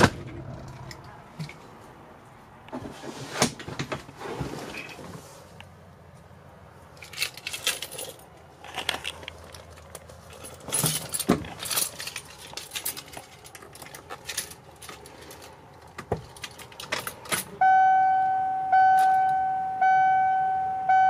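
Keys jangling and clicking as they are handled at the ignition of a Ford bus. Near the end a dashboard warning chime starts, dinging steadily about once a second.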